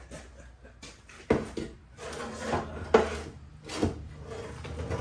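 Big pry bar scraping and knocking as it is levered at the work, with three sharper knocks about a second and a half, three and four seconds in.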